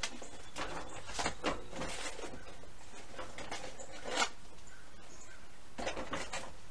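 A metal pan being pushed and scraped onto the bottom rack of a Masterbuilt electric smoker: a string of short, irregular sliding scrapes and knocks, the loudest about four seconds in. The pan is a little too big for the rack and does not slide in easily.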